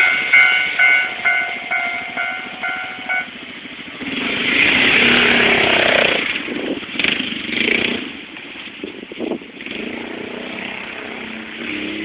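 Japanese railway level-crossing warning bell ringing, about two strokes a second, stopping about three seconds in. After it stops, road traffic moves across, with a motor vehicle passing loudly from about four to six seconds in.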